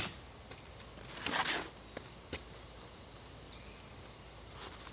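Quiet outdoor handling sounds from someone moving about a worktable: a brief rustle about a second in, then a couple of light clicks, with a faint high thin tone in the middle over low background noise.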